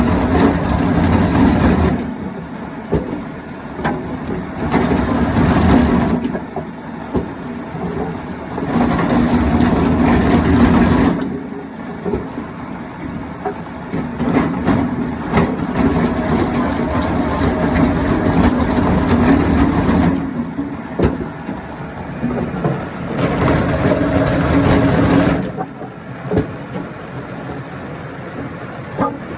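Woodworking machine running steadily with a motor hum, growing louder and harsher several times for a few seconds each as wood is cut through it.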